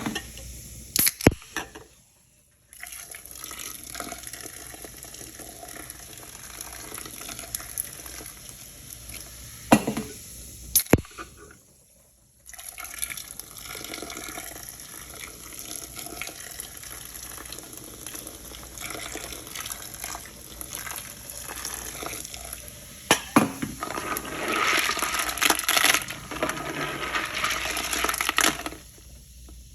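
Water running and splashing at a toilet, in three stretches split by short gaps, with a few sharp clicks or knocks. The water grows louder about three quarters of the way through, then cuts off suddenly.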